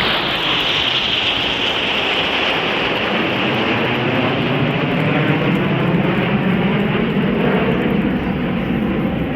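Formation of eight BAE Hawk T1 jet trainers flying past, their turbofan engines making a loud, steady roar. A high whine in the noise slowly falls in pitch while a deeper rumble builds toward the end.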